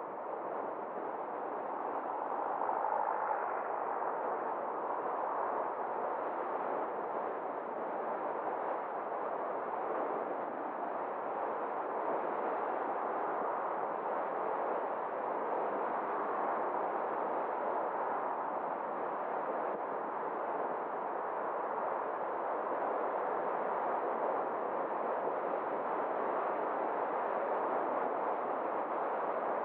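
Steady road noise of a car driving: a continuous hiss of tyres and wind, growing a little louder over the first couple of seconds and then holding level.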